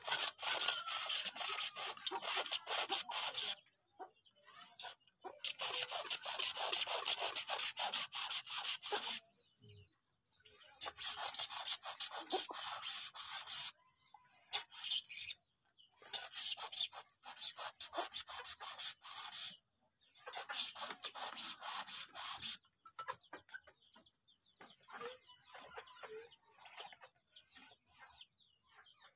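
Hand garden sprayer misting liquid fertilizer onto melon seedlings in five hissing bursts of a few seconds each, with short pauses between them, then fainter scattered sounds near the end.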